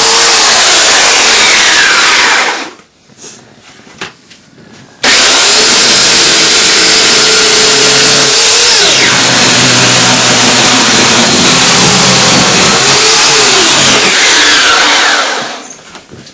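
Chainsaw running at high speed while cutting through a couch, its engine pitch sagging and recovering under load. It drops away to a low level a few seconds in, comes back suddenly at full speed and dies away near the end.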